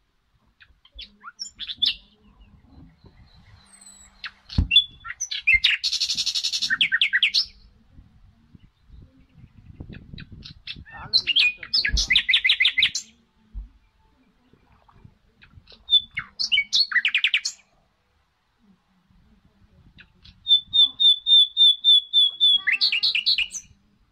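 Birds chirping in quick trills of rapidly repeated high notes, coming in several bouts with short pauses between. Underneath are soft low thuds and squelches, with a couple of sharper knocks, from hands and a blade working in wet mud.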